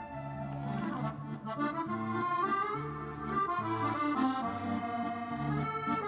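Music led by an accordion playing a sustained melody, with a low bass note sounding about once a second.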